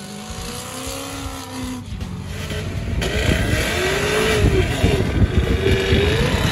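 A car accelerates past. Then a Cadillac CTS-V does a burnout: its V8 revs hard, rising and falling in pitch, over the hiss and squeal of the spinning rear tyres, and grows louder through the second half.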